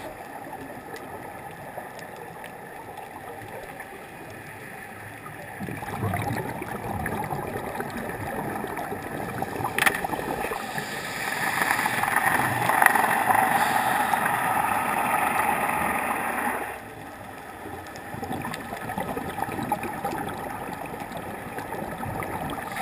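Underwater ambience picked up through a camera's underwater housing: a scuba diver's regulator breathing, with exhaled bubbles gurgling and rushing, loudest for several seconds in the middle and cutting off sharply. A single sharp click comes about ten seconds in.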